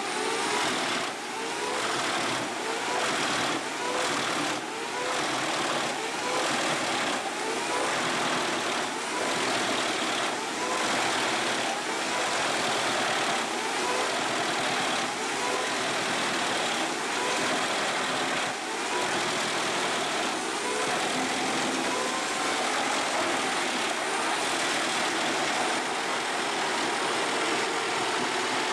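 Engine and drive of a large industrial wood shredder running steadily, its pitch swelling and easing in short repeated waves. In roughly the first half there are regular knocks about once a second.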